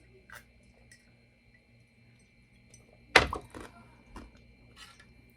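A single loud thunk about three seconds in, dying away over half a second, with a few fainter clicks and knocks from eating before and after it.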